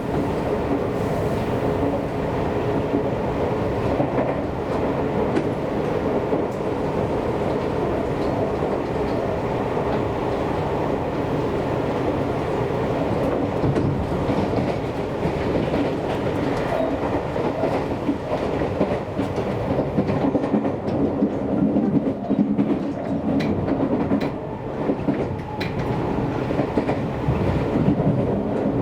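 Seibu Railway electric train running at speed, heard from inside the car: a steady rumble and motor hum, with the wheels clicking over rail joints, more often in the second half.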